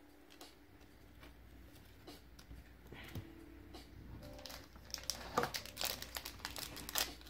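Foil wrapper of a Pokémon card booster pack crinkling as it is handled and worked open, faint at first and louder from about five seconds in.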